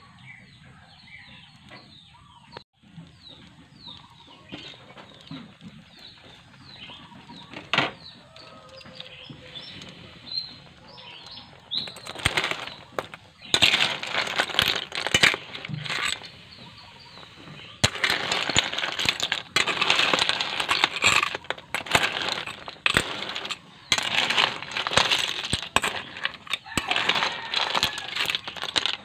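Cooked sea shells (cockles and clams) clattering and scraping against each other and the metal pot as a ladle stirs them in the steam, loud and continuous from about twelve seconds in. Before that the pot is quieter, with chicks or hens peeping repeatedly in the background.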